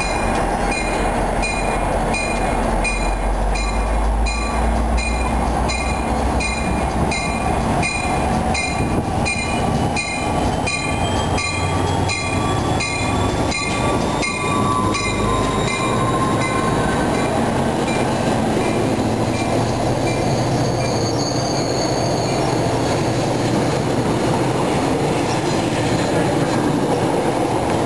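Tri-Rail commuter train passing on the rails with a steady rumble. A high ringing repeats about twice a second through the first ten seconds or so, and a thin squeal rises in pitch around the middle.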